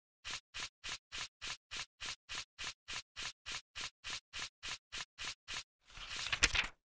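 Intro sound effect: a steady run of short scratchy pulses, about three and a half a second, then a brief swelling rush of noise with sharp crackles that cuts off suddenly.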